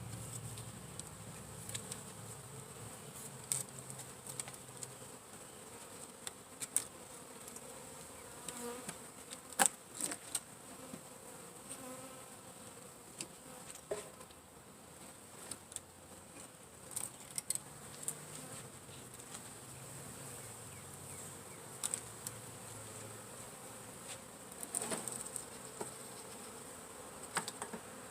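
Honeybees buzzing in a low, steady hum, with scattered short clicks and taps throughout.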